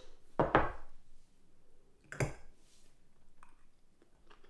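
A few soft knocks and light clinks of tableware: a ceramic bowl handled on a wooden table and a metal fork picked up, with the two louder knocks about half a second and two seconds in.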